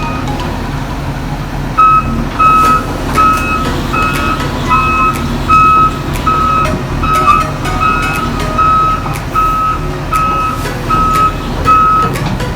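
Heavy-equipment backup alarm beeping steadily at about one and a half beeps a second, louder from about two seconds in, over a diesel engine running, as the machine travels in reverse.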